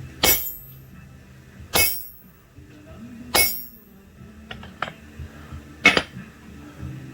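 Blacksmith's hammer striking steel on an anvil: four ringing blows, the first three about a second and a half apart and the last after a longer pause, with a couple of light taps in between.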